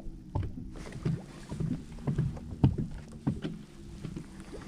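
Sounds of a small fishing boat: irregular knocks and taps on the hull over a low steady hum.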